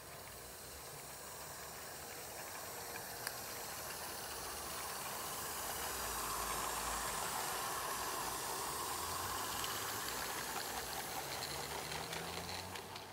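Roundhouse 'Tom Rolt' live-steam garden railway locomotive passing with its train, its steam hissing steadily, louder as it comes closest in the middle and easing as it moves away, with a light clicking near the end.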